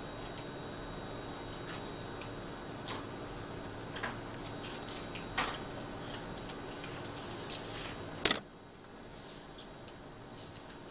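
Drawing paper being handled and shifted on a drawing table: scattered light rustles and taps over a faint steady hum, a brief sliding rustle about seven seconds in and a sharp click just after it.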